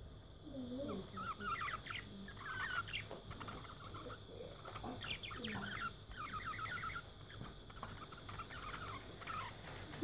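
Budgerigars chattering: runs of quick, squeaky warbling chirps.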